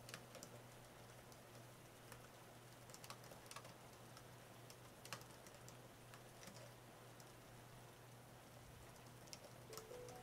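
Faint typing on an AlphaSmart portable word processor: irregular key clicks, a few at a time with short pauses between, over a soft steady hiss.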